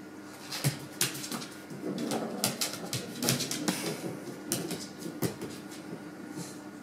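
A Basenji's claws clicking and scrabbling on a laminate wood floor as it darts about, a rapid irregular run of sharp clicks that stops about five seconds in.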